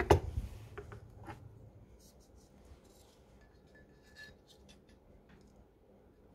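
A steel caliper set down on the bench with a sharp knock, then light clicks and scraping as a digital caliper's jaws are slid and closed over a small cast-iron T-slot table.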